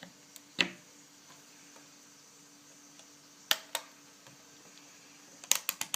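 Sharp plastic clicks from handling a multimeter: one click, a pair about three seconds later, then a quick run of four clicks near the end.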